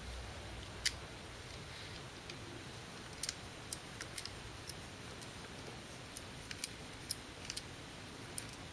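Light, scattered metallic clicks and taps of new brake pads being fitted and lined up in a Sur Ron X's disc brake caliper, about ten in all, the sharpest about a second in.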